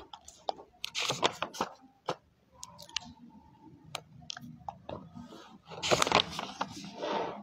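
Paper pages of a book rustling and crackling as they are handled and turned, in irregular clicks and crinkles that are loudest about a second in and again about six seconds in.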